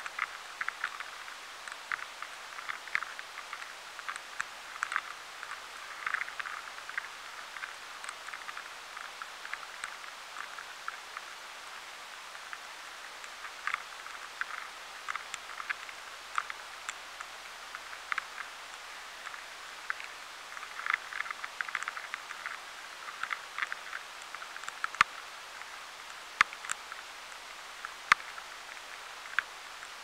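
Rice weevil larvae active inside durum wheat grains, picked up by a high-sensitivity sensor: irregular clusters of tiny clicks over a steady hiss. The bouts of clicking alternate with quieter lulls, showing the rhythm of the larvae's activity.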